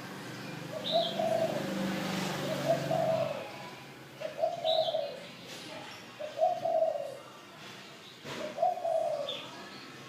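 A bird repeating a low call that rises and falls, five times at about two-second intervals, with a few short high chirps from another bird.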